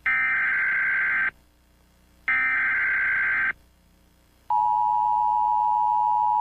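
Emergency Alert System tones: two buzzing bursts of the data-header tone about a second apart, then the steady two-tone attention signal begins about four and a half seconds in and holds.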